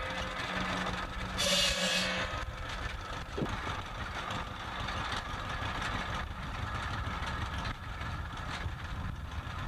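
Vintage John Deere two-cylinder tractor engine running steadily, driving a buzz saw. About one and a half seconds in there is a short, louder burst as the blade bites into a log.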